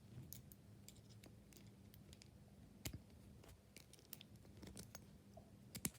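Near silence with a few faint, sharp clicks of a small brass padlock and its keys being handled, the clearest about three seconds in and two close together near the end.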